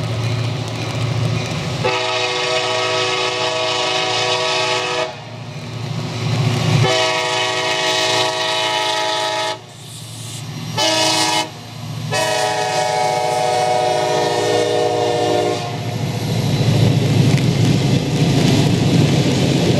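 Diesel locomotive air horn sounding the grade-crossing pattern: two long blasts, a short one and a final long one, each a chord of several steady notes. A low rumble of the train runs beneath it and grows louder near the end as the train comes closer.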